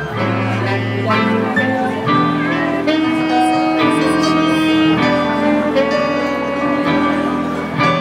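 Small jazz band playing live: saxophone holding long notes over electric archtop guitar, upright double bass and keyboard.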